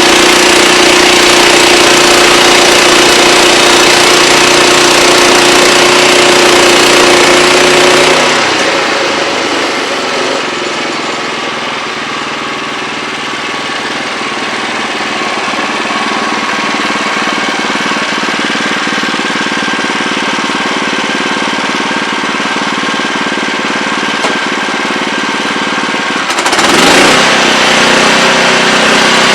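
Portable bandsaw sawmill's engine running steadily. About eight seconds in the sound drops and loses its deep hum, turning rougher for nearly twenty seconds, then the louder, even running sound returns near the end.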